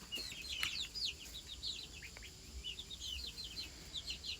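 Young ducklings peeping constantly, many short high peeps overlapping in a continuous chatter.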